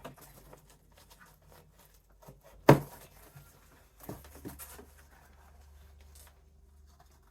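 Poster board being worked with a craft knife on a cutting mat: faint scrapes and handling noises, with one sharp snap or knock about two and a half seconds in and a couple of lighter knocks a second or so later.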